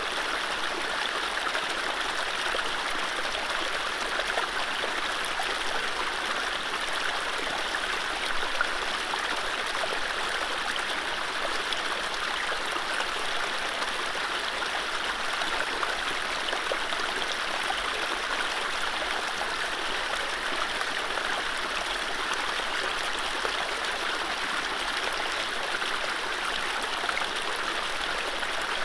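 Mountain stream flowing over low rapids: a steady, even rush of running water with fine splashing and gurgling.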